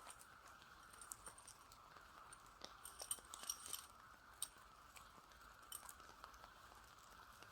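Faint scattered clicks and ticks, with a denser cluster about three seconds in, over a steady faint hiss.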